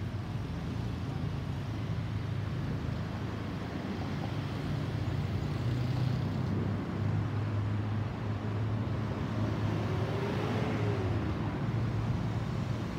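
Distant low rumble of a Boeing 737-800's CFM56-7B jet engines passing high overhead, growing slightly louder over the first half, blended with road traffic. A faint tone rises and falls about ten seconds in.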